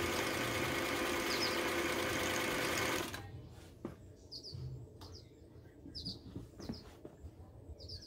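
Singer 319W sewing machine running steadily at speed as it sews, cutting off suddenly about three seconds in. Afterwards a few short, faint bird chirps and light clicks as the fabric is handled.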